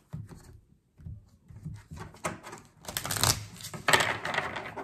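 A deck of oracle cards being shuffled and handled: a run of quick clicks and riffles, with two louder rustling riffles about 3 and 4 seconds in.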